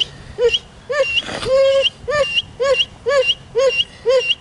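A working pit bull whining in short rising-and-falling cries, about two a second in a steady rhythm, with one longer drawn-out whine about a second and a half in.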